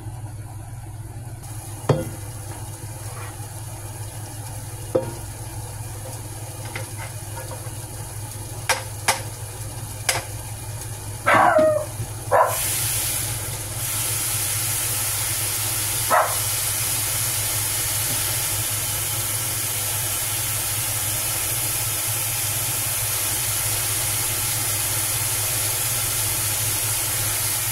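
A pot of food being cooked on a stove: a few sharp knocks of a utensil against the pot and a loud scrape a little before halfway, then a steady sizzling hiss for the rest.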